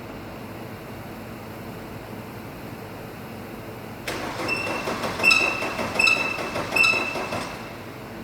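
Mercedes E220 CDI (W211) four-cylinder diesel being cranked by its starter, from about four seconds in for roughly three and a half seconds, with a high metallic squeal that recurs four times. The engine is hard to turn over.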